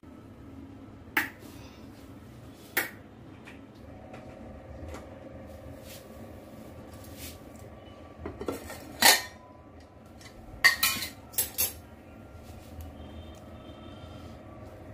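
A metal spoon clinking and knocking against cookware while food is handled: two single sharp clinks in the first few seconds, then two quick clusters of knocks about two-thirds of the way through, over a low steady hum.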